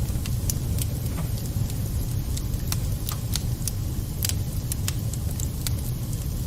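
Wood fire burning in a fireplace: a steady low rumble with sharp, irregular crackles and pops from the burning wood, about two a second.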